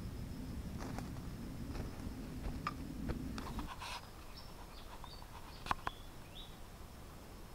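Footsteps crunching through dry leaf litter, with low rumbling handling noise and a few sharp crackles. After about three and a half seconds it drops to a quiet stretch with a few faint short bird chirps and a couple of small ticks.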